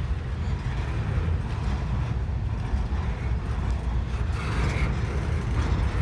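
Long freight train rolling past at close range, a steady low rumble of cars on the rails.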